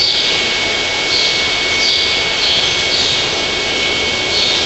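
Steady, loud rushing noise with a thin, high, steady whine running through it.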